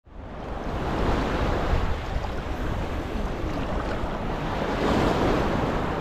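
Small Mediterranean waves washing onto a sandy shore, fading in at the start and swelling twice, with wind rumbling on the microphone.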